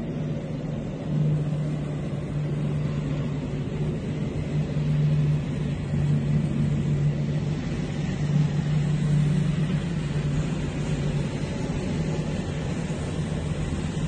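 Tank engines running as the tanks move, a steady low drone that gets a little louder about a second in.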